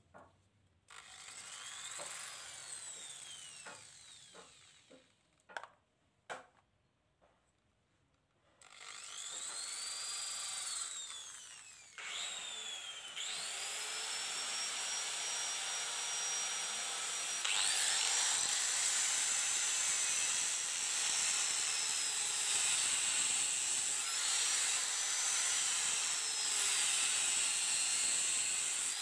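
Small electric drill boring holes in coconut shell. A brief run that winds down and a few knocks, then from about nine seconds in the motor's high whine runs almost without a break, its pitch sagging and recovering as the bit bites into the shell.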